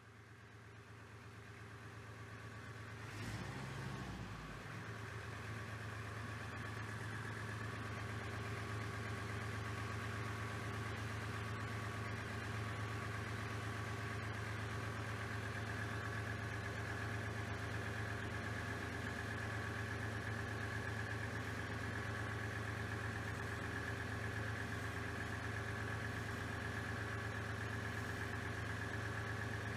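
Kubota M4900 tractor's diesel engine idling steadily, with a brief low thump about three seconds in.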